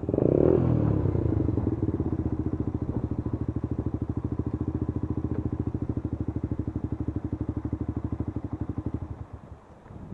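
Rieju RS3's 125cc liquid-cooled Minarelli two-stroke engine, breathing through an Ixil Extreme race exhaust, comes off a quick rev and settles into a steady, evenly pulsing idle. About nine seconds in the engine is switched off and the sound dies away.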